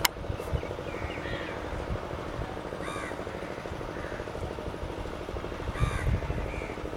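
Crows cawing several times, the two clearest caws about three seconds apart, over a steady low hum and rumble.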